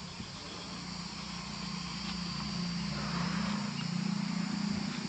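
Outdoor ambience: a steady low hum over a faint high hiss, slowly growing a little louder.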